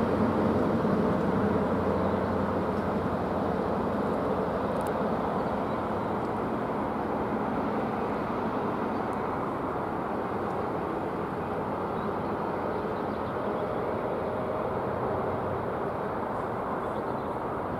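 Great Western Railway High Speed Train running away along the line, its Class 43 power car's MTU diesel engine and wheel noise making a steady drone that slowly fades as it recedes.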